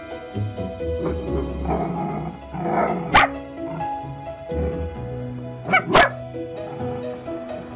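Long-haired dachshunds barking over background music: one sharp bark about three seconds in, then two quick barks close together near six seconds.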